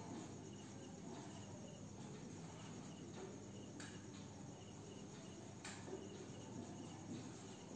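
Faint cricket chirping, short chirps repeating every fraction of a second over quiet room tone, with two soft clicks about midway.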